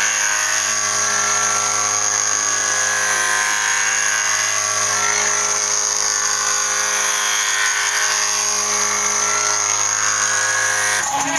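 A CNC machine running at a steady speed while cutting a spiral toolpath, with a high whine over a low hum. The low hum stops just before the end.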